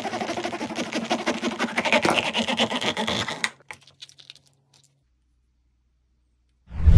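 A knife blade sawing through a hollow vinyl Funko Pop head in rapid scraping strokes, stopping about three and a half seconds in. A few light clicks follow as the cut head is pried open, then one loud low thud near the end.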